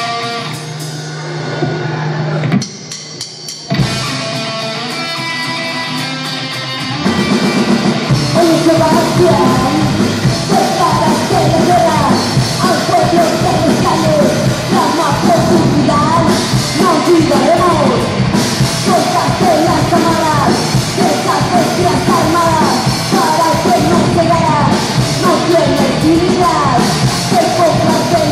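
Live rock band playing: electric guitar, bass guitar and drum kit, with a woman singing. The first seven seconds or so are sparser and quieter, with ringing sustained notes, then the full band comes in louder with the vocal over it.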